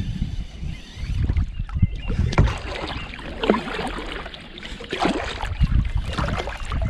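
Water splashing and sloshing irregularly around a small boat, with wind rumbling on the microphone.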